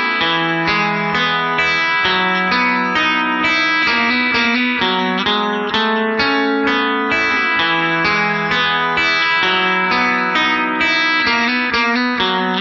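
Guitar music: a steady run of plucked notes.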